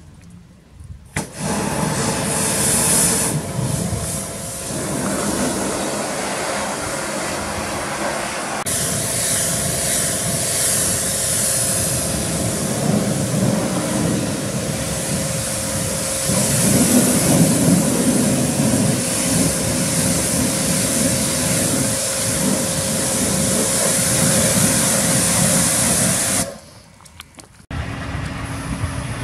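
Pressure washer jet spraying water onto a truck's painted body panels: a loud, steady hiss with a steady hum under it. It cuts off near the end, and a truck engine starts to be heard idling.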